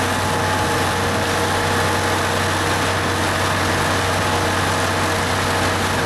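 Ford diesel engine of a 1966 Versatile D-100 articulated tractor running steadily under load as it hauls a drag sled, a low, even drone with no change in pitch.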